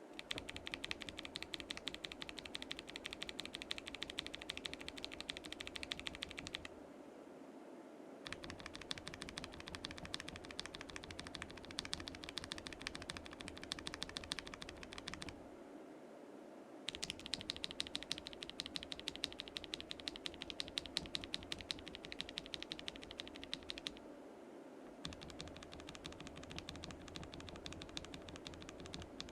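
Typing on a KBD67 Lite gasket-mount mechanical keyboard with a polycarbonate plate, fitted with Akko CS switches. It comes as four bursts of rapid keystrokes broken by short pauses, one for each switch being compared.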